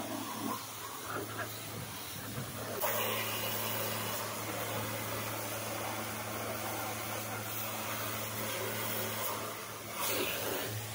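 Pressure washer spraying a car: the high-pressure water jet hisses against the bodywork over the steady hum of the washer's motor pump. The sound changes abruptly about three seconds in.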